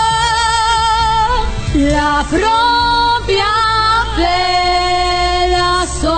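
A woman singing long held notes with vibrato over backing music. There are three drawn-out notes, the last and longest starting about four seconds in.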